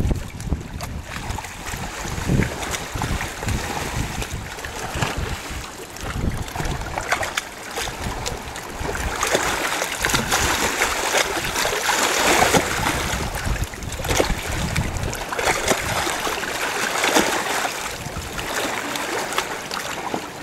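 Shallow river water sloshing and splashing around a landed paddlefish held in the shallows, with low wind rumble on the microphone during the first few seconds; the splashing grows louder from about the middle on.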